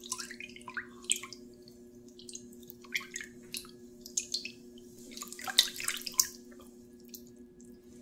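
Water with agar powder sloshing in an aluminium pot as the pot is swirled by hand. Irregular small splashes and drips come and go and are busiest about five to six seconds in.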